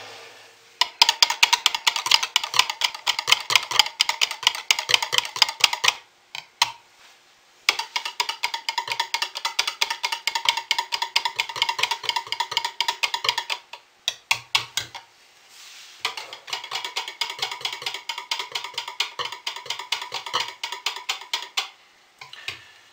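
Hand stirring in soap making: a utensil clicks rapidly and rhythmically against the side of a container, with a faint ringing. It comes in three runs of about five to six seconds, with short pauses between.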